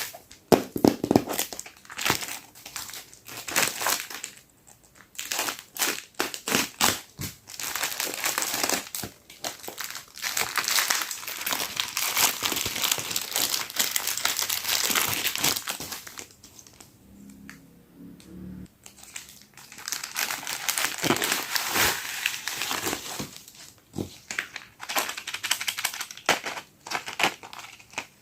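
Plastic parcel packaging being crinkled and handled as it is opened, in dense, irregular crackles, with a quieter pause about two-thirds of the way through.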